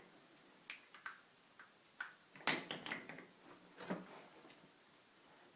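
Heavy steel lathe tooling being handled and set down: a series of scattered metal knocks and clinks, the loudest about two and a half seconds in with a brief metallic ring.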